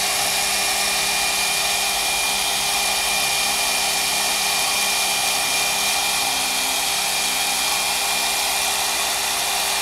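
Hair dryer blowing steadily to dry wet watercolour paint: an even rush of air with a faint high whine and a lower hum held level.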